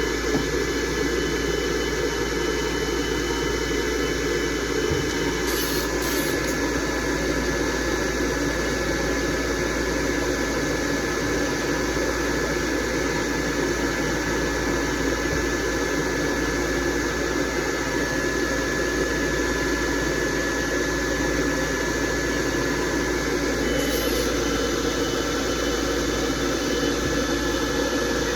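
Pet grooming dryer blowing air steadily, a continuous rushing noise with a thin high whine running through it.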